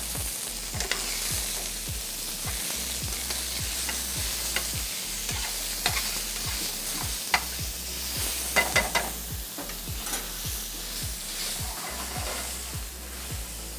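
Diced pork searing in hot oil in a metal sauté pan, sizzling steadily while a metal spoon stirs it. Sharp clinks and scrapes of the spoon against the pan come now and then, several in quick succession about two-thirds through.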